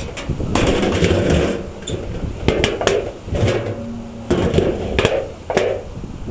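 Gusts of wind buffeting the microphone, with a string of sharp knocks, clicks and rustles from the camera being moved and handled.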